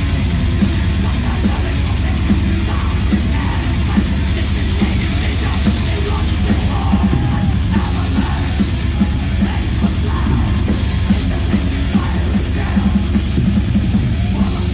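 Live thrash metal band playing at full volume: distorted electric guitars, bass and a drum kit with fast, driving drum hits, one unbroken wall of sound.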